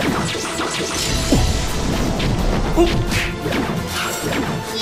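Martial-arts fight sound effects over dramatic music: a rapid run of strikes, crashes and whooshes, with the two heaviest hits about a second and a half and three seconds in.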